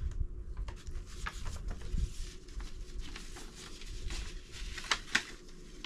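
Light rustling and a few soft taps of paper fan-pack items being handled and put back.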